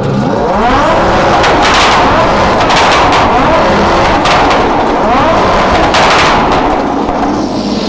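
A supercar engine revved hard twice, each rev rising in pitch, with clusters of sharp exhaust pops and bangs as the revs fall away: the backfire crackle of an exhaust set up to shoot flames.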